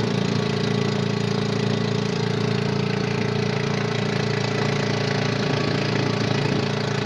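Small inboard engine of a motorized outrigger boat (bangka) running steadily underway, a constant low hum, over the rush of water and wind along the hull.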